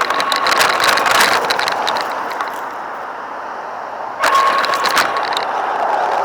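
Radio-controlled car running with its motor whining and the tyres scrabbling and clicking over the ground. It eases off after about two seconds and powers up again suddenly about four seconds in.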